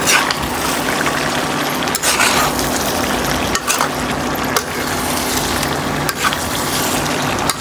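Chicken frying with ground masala in a metal kadhai, sizzling as a flat spatula stirs and scrapes through it, the spatula knocking against the pan every second or so. A faint low steady hum runs underneath.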